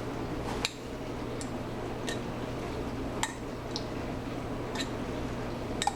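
A spoon clinking and scraping against the inside of a sauce container to scrape out the last of the sriracha: a handful of short, separate clicks about a second apart.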